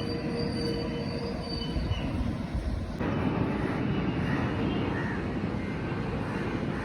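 Steady rumbling vehicle noise with a thin, steady whine over it for the first two seconds. The sound changes abruptly about three seconds in, then goes on as a steady rumble.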